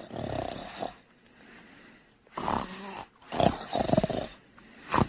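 A person snoring, about four snores with short pauses between.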